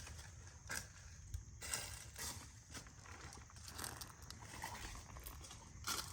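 Footsteps crunching on a trail, an irregular step every half second to a second.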